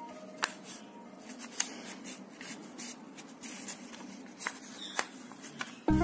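Red cardstock handled and folded by hand along its scored lines: soft paper rustling with a few short, sharp crackles of the card creasing. Music comes in loudly near the end.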